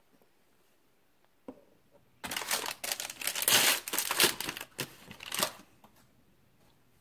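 Foil blind-bag packet being crinkled and torn open by hand: a dense crackle lasting about three seconds, preceded by a single light tap.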